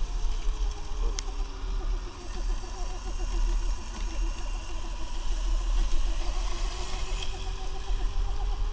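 Electric motor of a 2020 Sur-Ron electric dirt bike whining steadily at low speed, its pitch drifting up and down a little, over low wind rumble on the microphone. A single sharp click comes about a second in.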